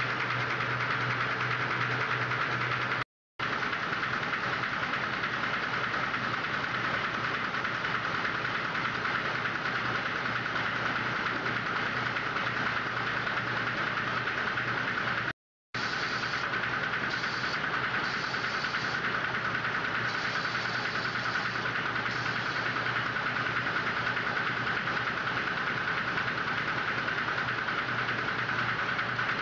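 M-fold paper towel folding machinery running with a steady, dense mechanical drone. The sound drops out briefly twice, about 3 and 15 seconds in.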